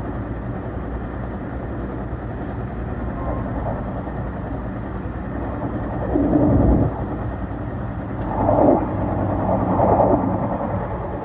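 Seibu Laview limited express train running on the line: a steady rumble with a faint hum, swelling louder for about a second around six seconds in, and again from about eight and a half to ten seconds in.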